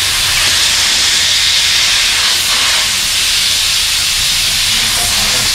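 Compressed air hissing steadily out of the A7009 air compressor system as its pressure is bled down from about 8 kg/cm². The hiss is loud and even throughout.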